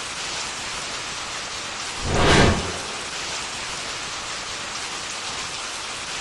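A steady rain-like hiss, swelling louder with a low rumble for about a second a couple of seconds in.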